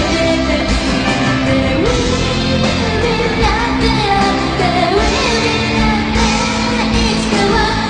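Live pop-rock song: a woman's lead vocal sung into a handheld microphone over a full backing band, loud and continuous.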